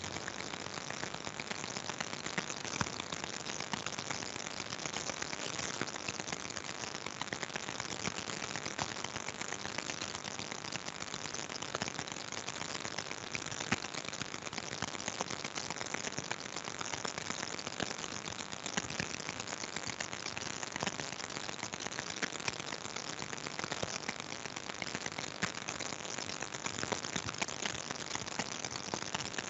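Steady hiss with many faint crackles and ticks running through it, like rain on a surface, carried over a video call's audio.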